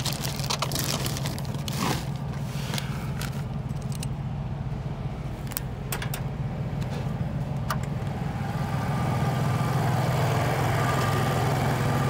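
The small engine of a truck-mounted generator is started and settles into a steady run, louder from about eight seconds in, over a low engine hum. A few sharp clicks come before it, as it is being started.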